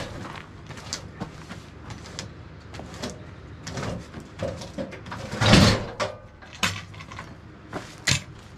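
Irregular sharp knocks of a hand tool striking a log on a sawmill bed, about a dozen strokes, with one louder, longer thud about five and a half seconds in.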